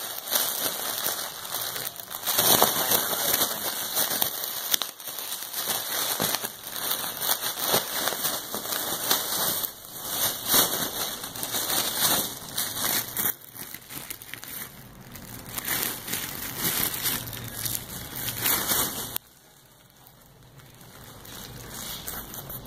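Foil (Mylar) balloon crinkling and crackling irregularly as a small dog chews and paws at it. It stops abruptly near the end.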